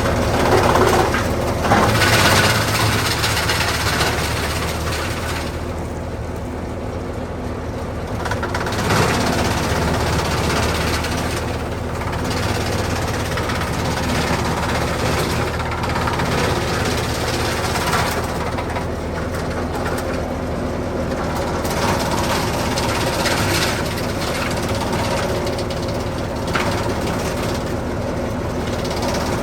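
Bandit 200UC towable wood chipper running steadily at a constant engine speed, with brief louder noisy surges every few seconds.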